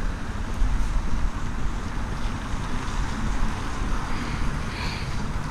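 Wind buffeting the microphone over the steady rumble of street traffic.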